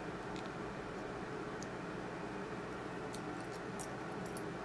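Faint, light plastic clicks of Lego pieces being picked and shuffled in a loose pile, a few scattered ticks, over a steady background hum.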